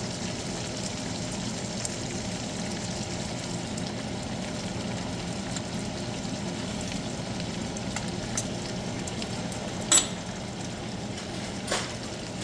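Butter and steaks sizzling steadily in a frying pan as the butter melts for basting. Near the end, two short sharp knocks, a second or two apart, stand out above the sizzle.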